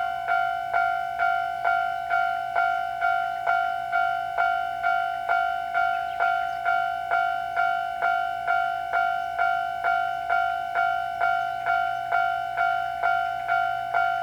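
Japanese level-crossing warning bell ringing steadily at about two strikes a second, each strike a clear ringing tone that fades before the next. It signals that the crossing is active for an approaching train.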